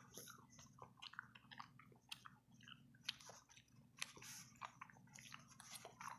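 Faint wet chewing and biting of a brined olive, in irregular short crackles, with a steel fork clicking and scraping in a glazed ceramic crock about three to four seconds in.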